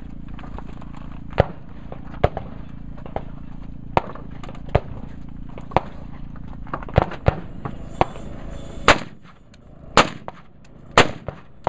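Rifle gunfire: sharp cracks scattered through, the three loudest about a second apart near the end, fired from a Blaser R8 straight-pull bolt-action rifle, with quieter shots in between and a steady low hum underneath.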